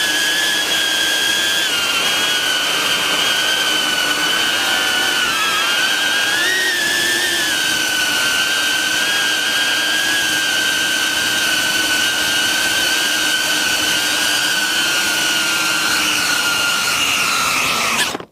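BetaFPV Beta95X V3 FPV quadcopter's brushless motors and propellers whining steadily in flight, heard from a camera mounted on the drone, the pitch wavering slightly with throttle. Near the end the pitch drops briefly and the sound cuts off abruptly.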